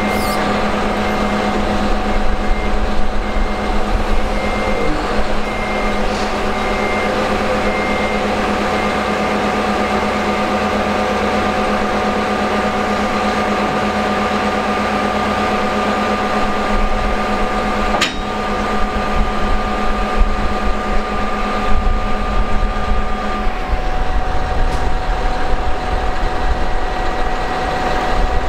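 Heavy diesel engine of a Cat D7 bulldozer running steadily with a constant whine over a low rumble. A single sharp clank comes past the middle. A few seconds later the whine drops away, leaving a rougher low rumble. Faint beeping of a reversing alarm is heard in the first few seconds.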